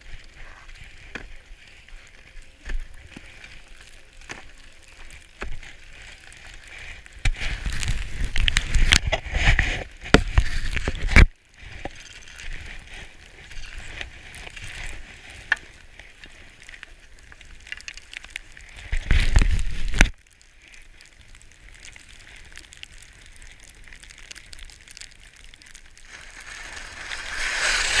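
Skis running through fresh powder snow: a steady hiss, with several louder rushing stretches and a few sharp clicks.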